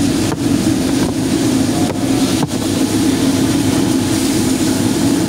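Loud, steady roar of a gas wok burner at a commercial wok range.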